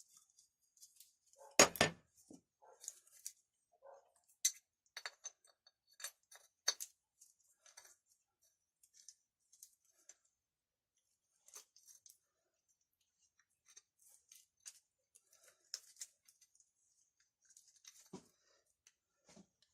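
Light clicks and clinks of small metal parts of an Ural chainsaw's recoil starter being handled and fitted back together, with one louder knock a little under two seconds in.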